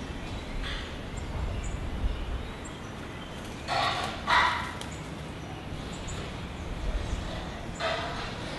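Oropendolas calling at their hanging nest colony: two loud, harsh calls half a second apart about midway and another near the end, over short, high chirps.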